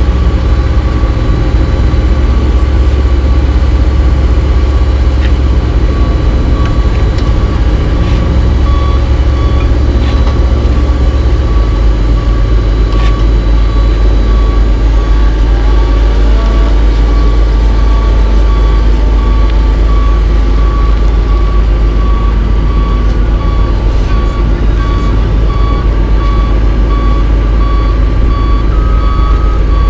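Heavy diesel engine of a Cat AP655F asphalt paver running steadily at close range; its low note drops slightly about twelve seconds in. Backup alarms beep repeatedly over it, a second, higher-pitched alarm joining in the later part.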